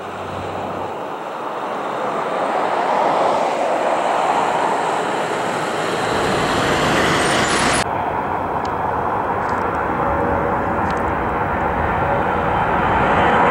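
DC-10 air tanker's three jet engines at takeoff power, the noise building as the aircraft rolls down the runway. About eight seconds in the sound breaks off abruptly and continues as steady jet noise while it climbs out.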